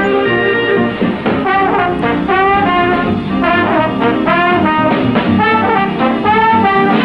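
Brass-led cartoon theme music with swooping, sliding phrases, playing over a TV show's opening credits.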